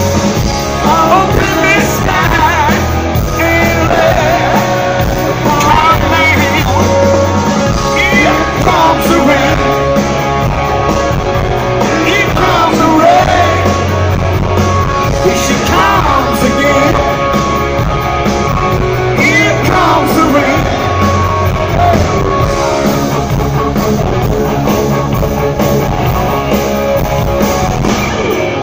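Live hard rock band playing: electric guitars, bass and drums driving a steady beat under a male lead singer's vocal.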